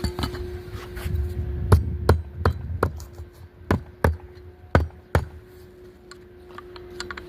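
Hammer blows on an asphalt shingle roof: about eight sharp strikes, two or three a second, between about two and five seconds in, with a few lighter taps before and after. A faint steady hum runs underneath.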